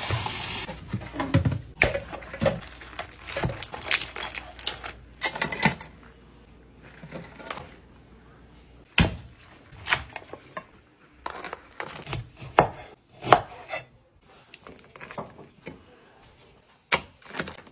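Dungeness crab shells being cracked apart and the pieces knocked into a stainless steel pot: an irregular run of sharp cracks, clicks and knocks, with a few louder knocks in the second half.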